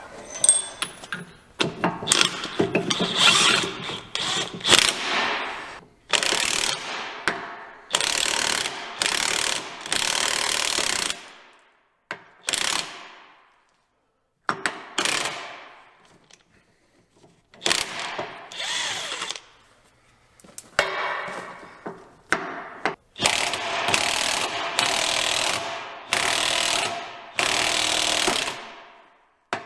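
Cordless impact wrench driving the screw of a C-frame press in repeated short bursts, pushing a worn U-joint's bearing caps out of a drive shaft yoke.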